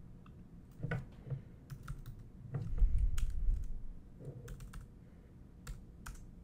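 Typing on a computer keyboard: scattered, irregular key clicks, with a louder low thump about three seconds in.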